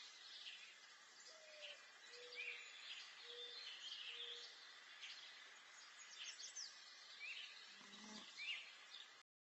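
Faint birdsong: scattered short chirps and trills over quiet outdoor background noise, with a few faint short low tones in the first half and a brief low sound near the end. The sound cuts off shortly before the end.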